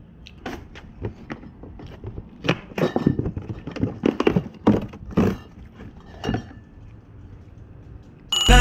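Knocks and clinks of glass beer bottles shifting in a cardboard case as one is pulled out, the handling noises coming thick for about six seconds and then easing off. Loud music starts abruptly right at the end.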